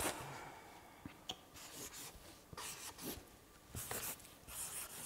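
Marker pens writing on small whiteboards: a series of short scratchy strokes, with a couple of sharp clicks about a second in.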